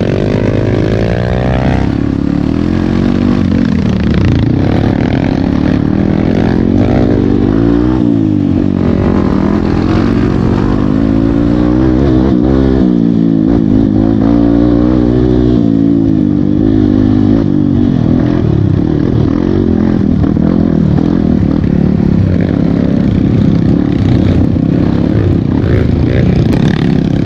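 Honda CRF150L trail motorcycle's single-cylinder four-stroke engine running while being ridden, its pitch rising and falling again and again as the throttle opens and closes.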